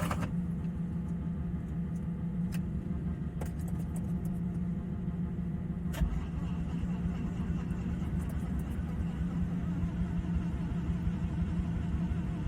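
Bridgeported 13B rotary engine idling steadily while it warms up on a cold morning, with a few sharp clicks about 2.5, 3.5 and 6 seconds in.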